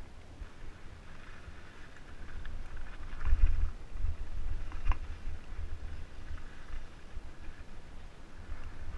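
Mountain bike riding over a dirt and rock trail, heard from a helmet camera: wind rumble on the microphone with the crunch of tyres on gravel and slab, and two sharp knocks of the bike rattling over rock, about three and five seconds in.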